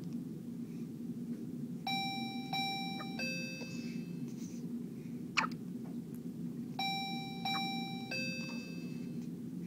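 Newborn baby hiccupping, one short sharp hic about halfway in. A short bright electronic chime tune plays twice behind it, over a steady low hum.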